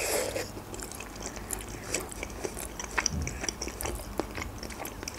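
A person biting into a boiled khinkali dumpling and chewing it: a bite right at the start, then steady chewing with many small mouth clicks.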